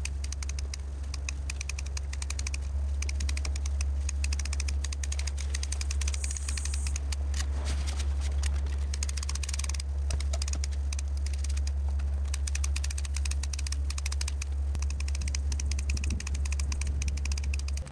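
Curved hand topiary shears snipping a hedge: a fast, dense run of crisp metal clicks, over a steady low rumble.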